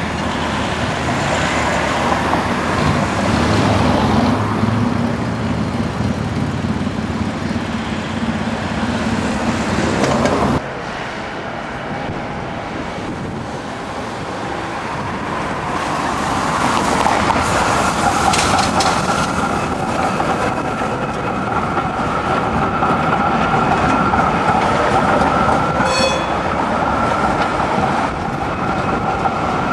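Low-floor trams running on street track amid road traffic: wheels rumbling over the rails, an abrupt cut about ten seconds in, then a steady high whine as a tram approaches and passes close.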